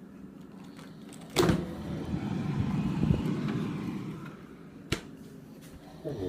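A man's loud, rattling snore, starting abruptly about a second in and lasting nearly three seconds, then a sharp click, and another snore beginning right at the end.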